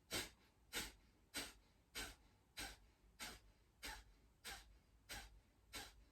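Kapalbhati breathing: ten short, forceful exhalations through the nose at a steady pace of about three every two seconds, each a sharp puff pumped out by a snap of the lower abdominal muscles, with silent passive inhales between.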